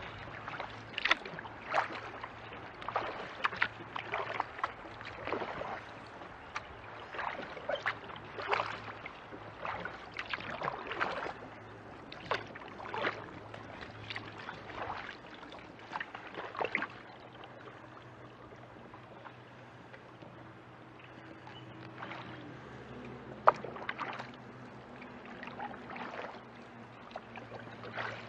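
Kayak paddle strokes in creek water: splashes and drips as the blades dip, about one or two a second, easing off about two-thirds of the way through as the kayak glides, with a few more strokes near the end.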